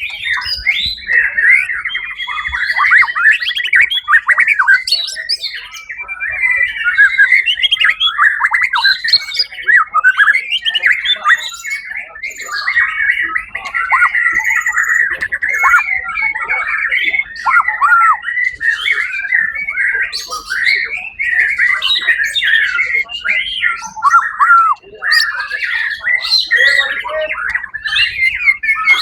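White-rumped shama (murai batu) singing without a break: a fast, varied stream of whistled and rapidly gliding notes.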